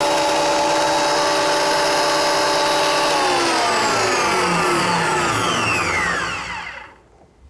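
Metabo DH330 thickness planer's universal motor and cutter head running at full speed, then switched off about three seconds in and winding down, its whine falling steadily in pitch over about four seconds until it stops.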